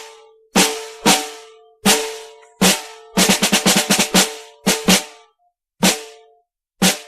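Military field snare drum played alone in a Civil War–style cadence: separate sharp strokes, each with a short ringing tone, and a quick run of about eight strokes about three seconds in.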